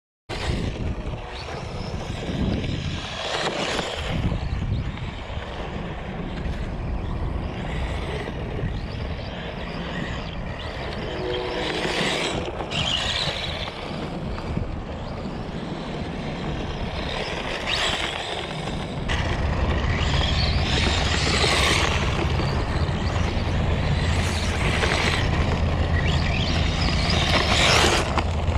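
Electric LC Racing rally RC car driving and sliding on loose dirt, with tyre and gravel noise and heavy rumble on the camera microphone. The rumble gets louder and steadier about two-thirds of the way in.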